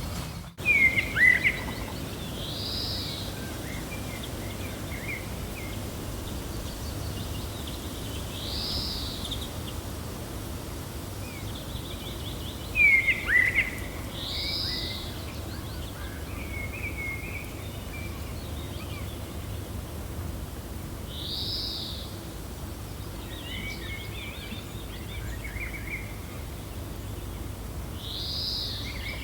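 Gentle wind blowing steadily while birds call: a high arched note repeats about every six seconds, and louder bouts of sharp, falling chirps come about a second in and again about halfway through.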